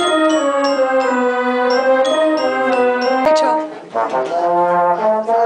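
School concert band playing held brass chords, with a French horn close by. The chords move slowly from note to note. A little past halfway there is a sharp knock and the playing drops away briefly before the band comes back in.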